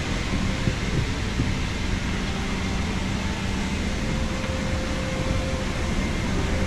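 Steady rumble and hiss of an airliner cabin, with a few faint steady tones over the noise of the engines and air vents.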